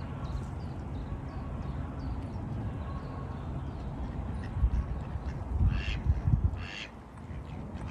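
Two short, harsh waterfowl calls about six seconds in, over wind rumbling on the microphone. Faint small-bird chirps in the first few seconds.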